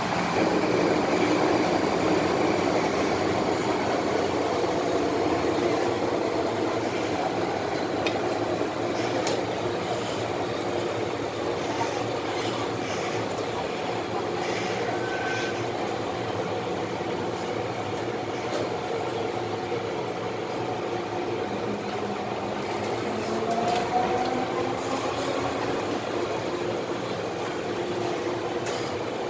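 Running noise inside an MTR M-Train electric multiple unit travelling through a tunnel: a steady rumble of wheels on rail with a hum of steady tones, and a short rising whine near the end.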